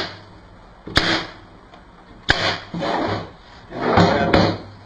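Staple gun shooting staples into the bottom of a wooden bird feeder, three sharp shots, with the wooden box scraping and rubbing as it is shifted between them.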